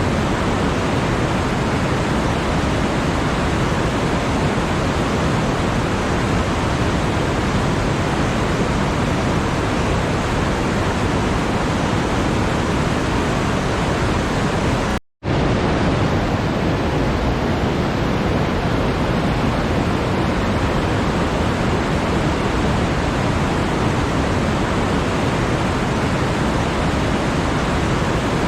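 A steady, even rushing hiss spread evenly from deep to high pitches, which cuts out for a split second about halfway through.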